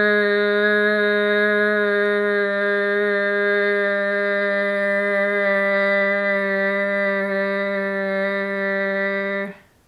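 A woman's voice holding one long, steady "errr": the R sound sustained on a single unchanging pitch as an articulation drill, lips in a smile and tongue pulled back. It cuts off suddenly near the end.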